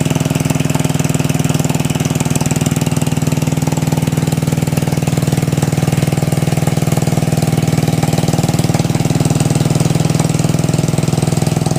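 Engine of a homebuilt 1963 tractor idling steadily, with an even, rapid firing beat.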